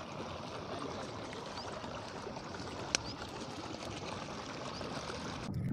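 Stream water running steadily over rocks, with a single sharp click about three seconds in. The sound changes abruptly just before the end.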